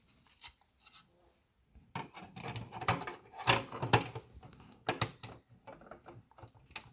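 Plastic cover of a Lutron screwless wallplate being handled and pressed onto its mounting plate: a run of sharp plastic clicks and knocks with scraping between them, starting about two seconds in.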